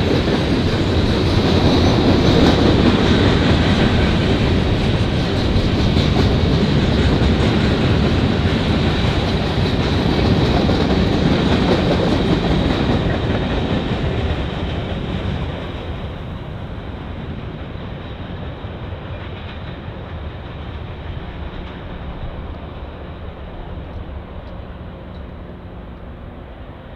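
A freight train of hooded steel coil cars and covered hoppers rolling along the rails. The wheel noise is loud at first, then fades steadily after about halfway as the end of the train passes and draws away.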